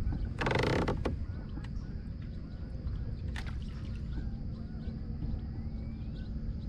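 Quiet open-water ambience from a kayak: a steady low rumble, faint bird chirps and a few small clicks, with a short creak about half a second in.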